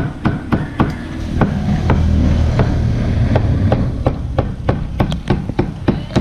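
Rapid, repeated chopping of a cleaver on a cutting board, about three or four sharp strikes a second, with a pause of about a second near the middle.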